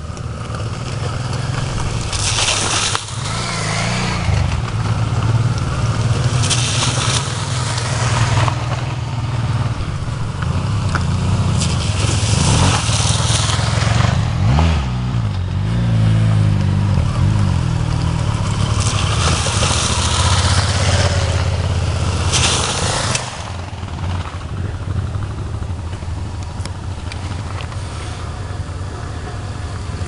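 Motorcycle engines running as the bikes ride up a dirt track toward a water crossing, with the engine pitch rising and falling around the middle as a rider works the throttle. Several bursts of rushing hiss lasting a second or two come and go, and the sound eases off somewhat after about 23 seconds.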